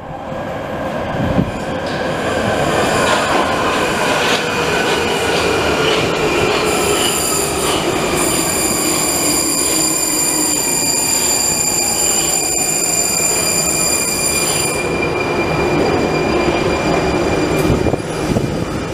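A Prague Metro 81-71M train pulls into an underground station and brakes to a stop. Its motor whine falls slowly in pitch over the rumble of the wheels. A high steady brake squeal starts about seven seconds in and stops near fifteen seconds.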